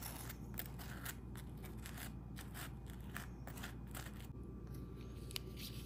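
Butter knife scraping across a slice of toast, spreading jam in short repeated strokes, a few a second.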